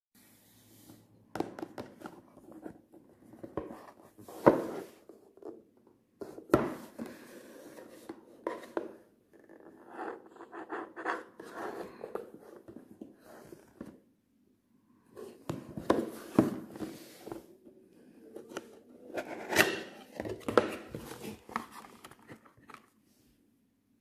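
Cardboard phone box being handled on a wooden table: irregular rubbing, scraping and sharp clicks and knocks as it is turned over and its lid opened, with a brief pause about halfway.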